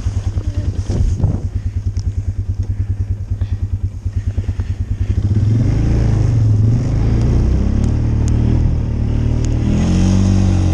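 Small vehicle engine idling with a fast, even putter, then revving up about five seconds in and running louder with its pitch rising and falling as it drives off through deep snow.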